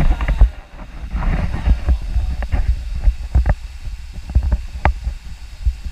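Low rumbling wind and handling noise on an action camera's microphone, with scattered sharp knocks and clicks from gear and movement against the camera.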